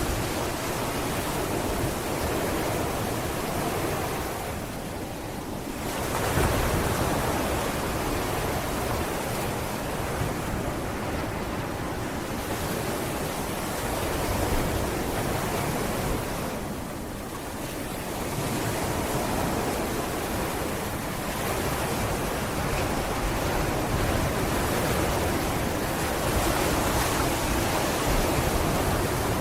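Sea waves breaking and washing on a beach in a continuous rush, easing off about five and again about seventeen seconds in before the next wave swells up.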